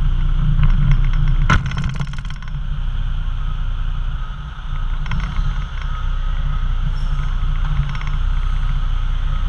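Heavy truck's diesel engine running steadily as the B-double eases forward with its tipper raised, with a brief sharp clatter about one and a half seconds in.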